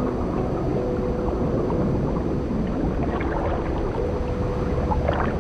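Underwater ambience: a steady low rumble and hiss with scattered faint clicks and gurgles.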